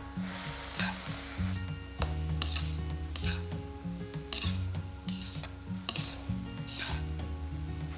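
Metal spatula stirring and scraping cauliflower fried rice around a hot wok, a stroke every half second to a second, over background music.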